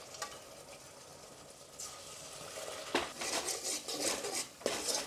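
Masala with mutton stock frying faintly in an aluminium pot. From about three seconds in, a steel ladle stirs it and scrapes and clinks against the pot in quick, repeated strokes.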